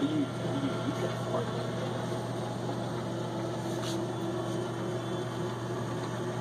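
Steady low hum with a few faint steady higher tones over a soft hiss: the background drone of a small grocery store.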